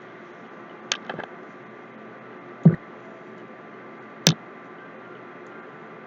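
Balls of bonda batter deep-frying in hot oil in a steel kadai: a steady low sizzle with a few sharp pops or clicks, around one second in, near three seconds and just past four seconds.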